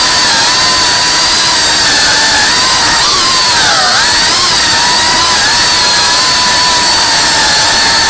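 Small FPV drone's electric motors and propellers whining steadily, the pitch dipping and then rising again about three to four seconds in as the throttle changes.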